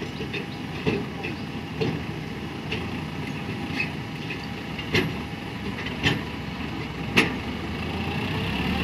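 Heavy diesel engine running steadily, with sharp knocks about once a second, growing louder near the end.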